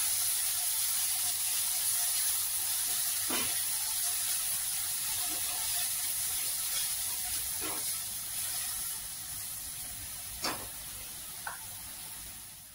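Chopped onion and cumin seeds sizzling in hot oil in a non-stick kadhai, stirred with a silicone spatula that knocks and scrapes against the pan a few times. The sizzle eases off a little near the end.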